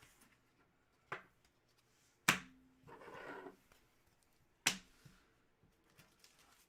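Three sharp clicks or taps, about a second, two and a half and five seconds in, with a soft rustle between them: objects being handled and set down on a tabletop.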